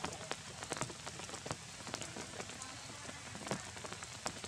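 Rain pattering on wet ground: a steady hiss with many irregular sharp drips.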